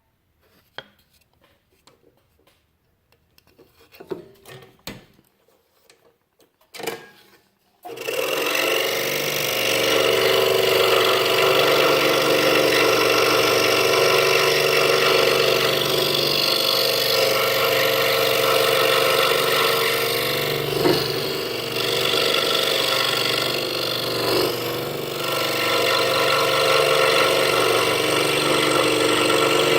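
A few faint clicks and knocks as the blade is set for an inside cut. Then, about eight seconds in, a scroll saw starts abruptly and runs steadily, cutting half-inch pine.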